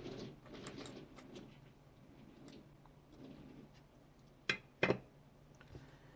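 Quiet soldering-bench handling sounds: soft rustling of small parts and tools, then two sharp clicks close together about four and a half seconds in, over a faint steady hum.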